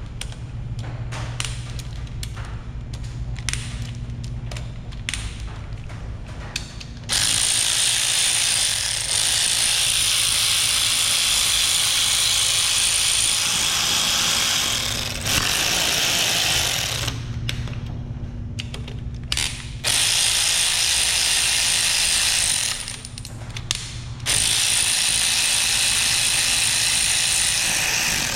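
Ratchet wrench clicking rapidly as bolts are backed out of a Ford 5.0 Coyote V8 during teardown. Then a loud, steady hissing tool noise runs in three long stretches, starting and stopping abruptly.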